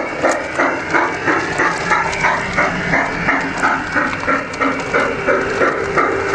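G-scale garden-railway steam locomotive chuffing steadily at an even beat of about three chuffs a second.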